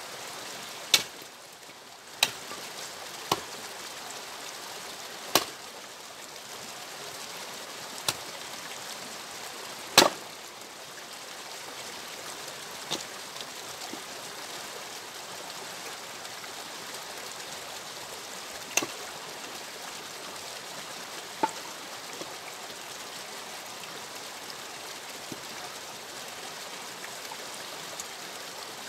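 An axe splitting firewood logs on a chopping block: about nine sharp wooden knocks at irregular intervals, with a long pause in the middle, over a steady rushing background noise.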